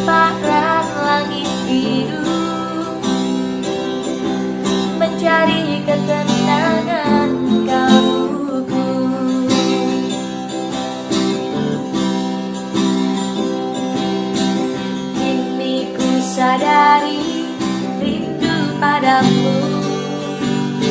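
Acoustic guitar strumming chords as a song's accompaniment, with a gliding melody line coming in over it a few times.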